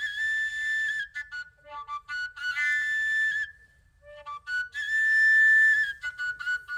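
Tylynka, a Ukrainian overtone flute without finger holes, playing a breathy melody. It has held high notes broken by quick flickering note changes, with a brief pause between phrases a little over halfway through.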